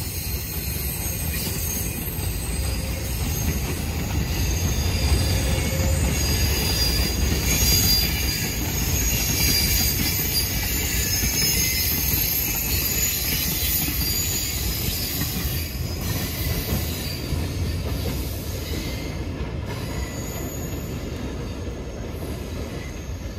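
Freight cars of a slow train rolling past: steel wheels rumbling on the rails with high-pitched wheel squeal, getting quieter over the last few seconds as the cars move away.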